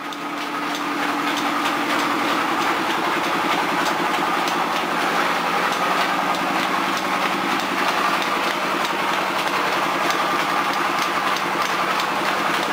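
Wheat flour mill machinery running steadily: a continuous mechanical hum with a fast, fine clatter on top. It comes up over about the first second, then holds even.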